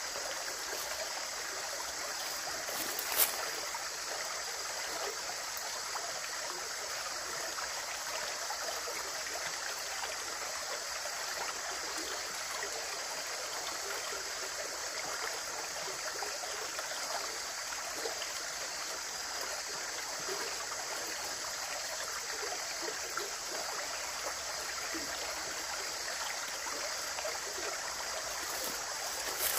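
Running water: a stream flowing and splashing steadily, with one sharp click about three seconds in.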